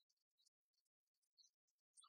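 Near silence, broken only by faint, brief high-pitched ticks.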